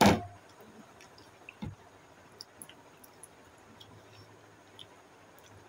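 Faint wet mouth sounds of cake being eaten without hands: soft squishes and small clicks of licking cream off a plate and chewing. A single sharp knock at the very start is the loudest sound.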